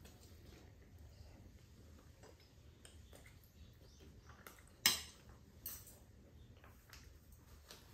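Metal chopsticks clicking against a stainless-steel serving plate and on food: a few sharp clinks, the loudest about five seconds in and another just after.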